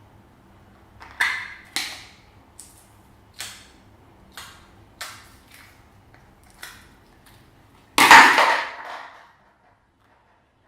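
Slime being worked by hand, with air pockets popping: about eight sharp, separate pops over several seconds, then a louder, longer stretch of popping about eight seconds in that lasts about a second.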